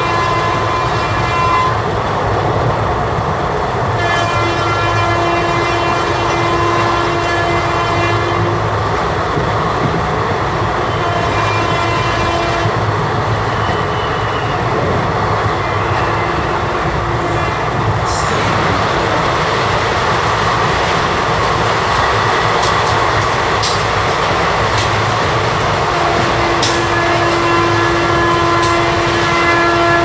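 Indian Railways WAP-4 electric locomotive's horn sounding four blasts, heard from inside a coach of the train it is hauling: a short one at the start, two longer ones of about four seconds, and a shorter one. Under the horn is the steady running noise of the coach, with rail-joint clicks in the second half.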